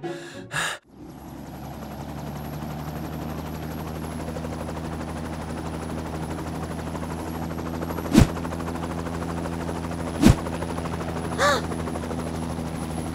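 Cartoon helicopter sound effect: a steady engine drone with fast rotor chopping, coming up about a second in. Two sharp loud bangs about two seconds apart cut through it past the middle.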